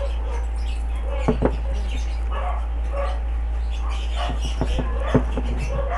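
A dog barking in short calls every half second to a second, over a steady low hum. A few sharp knocks come from a plastic fruit crate and its tarpaulin liner being handled.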